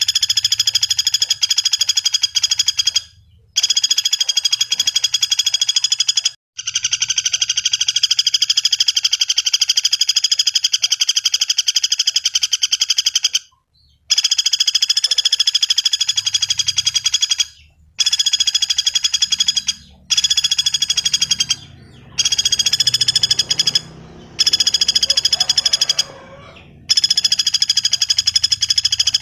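Common flameback woodpecker (pelatuk bawang) giving its fast rattling trill over and over, in long bouts of a few seconds each broken by short pauses.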